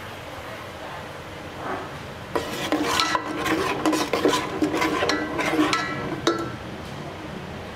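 Steel ladle stirring and scraping a spice paste frying in oil in a metal pot, with clinks and ringing of metal on metal from about two and a half seconds in until about six seconds. A steady sizzle of the paste in the hot oil runs underneath.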